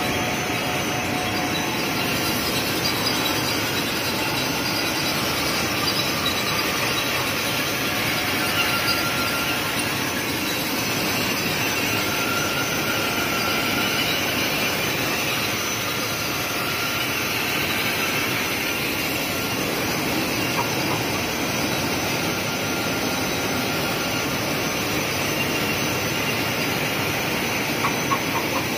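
A servo-driven six-colour rotogravure printing press running steadily, with BOPP plastic film travelling over its rollers. It makes an even mechanical noise, with a faint whine that comes and goes and a few light clicks near the end.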